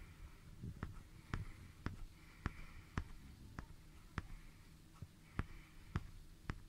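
Faint, sharp clicks at a fairly even pace of about two a second over quiet room tone.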